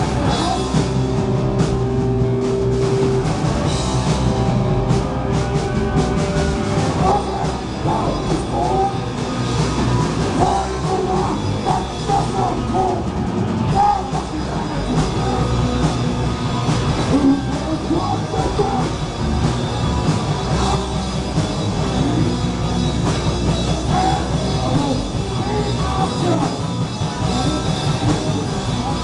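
Live punk rock band playing a song, loud and continuous: electric guitar, bass and drum kit, with vocals.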